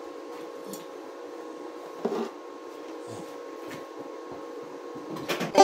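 A fan runs with a steady hum, with a brief louder noise about two seconds in.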